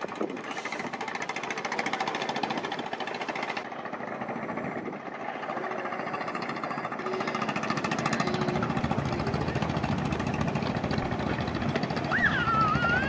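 Fishing boat's engine running with a rapid, even knocking beat. Near the end, a short high wavering call cuts in.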